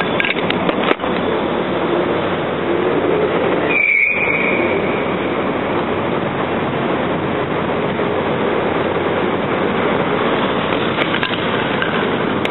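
Steady noise of heavy road traffic on a multi-lane city avenue, with a brief high squeal about four seconds in.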